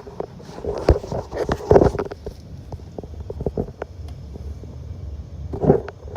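Irregular clicks and knocks of small parts and tools being handled, over a low background rumble, busiest in the first two seconds.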